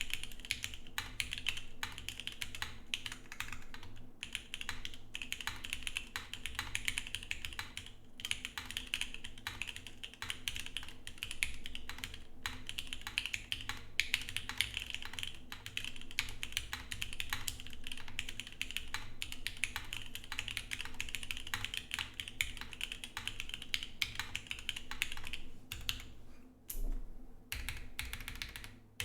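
Continuous fast typing on a Geonworks F1-8X mechanical keyboard with an aluminum plate, lubed SP-Star Luminos switches and CRP keycaps: a dense stream of keystroke clacks, with a brief pause near the end.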